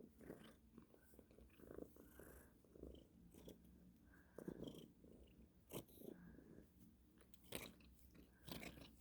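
A cat grooming itself with faint, sloppy wet licking and smacking sounds at an irregular pace, with a few sharper clicks near the end.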